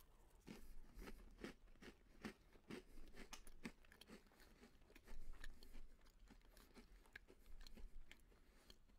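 A person chewing a crunchy Chips Ahoy Chunky chocolate chip cookie close to the microphone: a faint, irregular string of crunches, a little louder about five seconds in.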